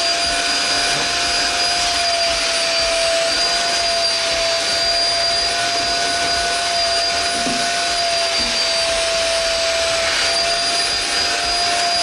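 Lifelong Amaze Pro bagged vacuum cleaner running steadily with a high whine, its narrow nozzle drawn over a fabric Roman blind.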